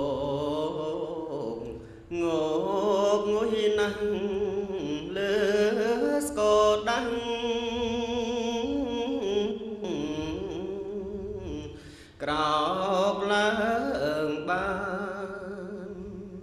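Slow Buddhist devotional chant sung by a voice in long, wavering phrases with music behind it. The voice breaks off briefly about two seconds and twelve seconds in.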